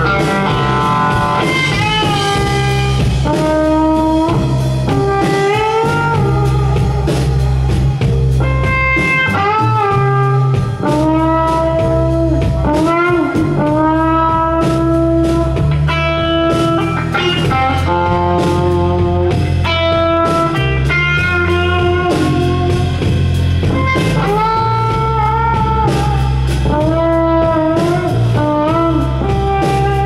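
Slow instrumental blues played live: a 1959 Fender Telecaster electric guitar takes the lead, with long sustained notes, many of them bent up or down in pitch. Bass guitar and a drum kit play underneath.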